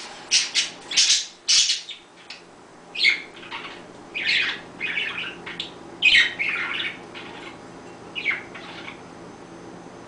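Pet budgerigars calling: a quick run of loud, harsh squawks in the first two seconds, then scattered chirps that thin out and fade toward the end.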